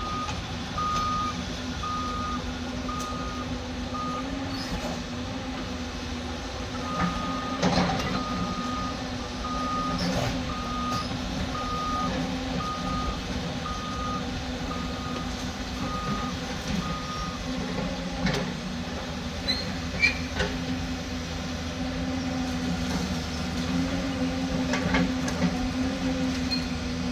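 Cat 255 skid steer's diesel engine running steadily as it backs up, its reversing alarm beeping about once a second for the first few seconds and again for about ten seconds from about 7 s in. A few knocks are heard along the way.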